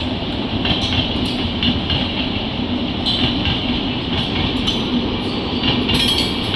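Indian Railways passenger coaches rolling past close by at speed: a steady rumble and hiss of wheels on rail, with sharp clacks about once or twice a second as the wheels cross rail joints.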